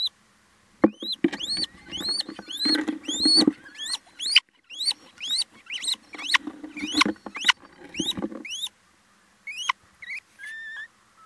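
Little owls calling inside a nest box: a fast run of sharp, squeaky calls, each rising then dropping, about two to three a second, thinning out near the end. Low scuffling of the birds moving on the nest litter comes in two bouts under the calls.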